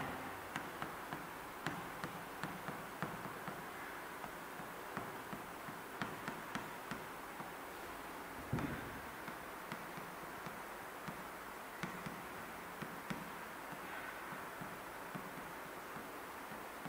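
Light irregular tapping and ticking of a stylus on the glass surface of an interactive display board while handwriting, with one louder knock about eight and a half seconds in.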